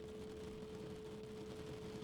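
Steady 432 Hz pure tone held unchanging over a soft, even hiss of rain.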